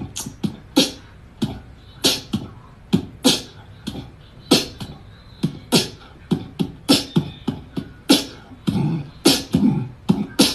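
Beatboxing: rhythmic mouth percussion of sharp clicks and hisses at about two hits a second, with fuller, deeper beats near the end.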